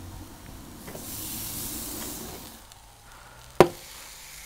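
Wet, marinated roe deer meat squelching as pieces are lifted out of a bowl and laid into a wire grill basket. A single sharp knock comes about three and a half seconds in.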